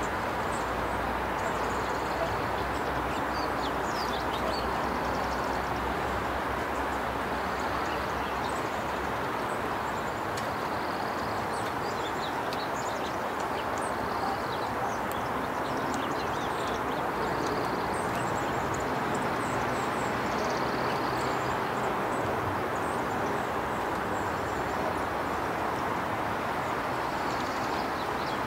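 A steady outdoor rushing noise, with faint short high bird chirps scattered throughout.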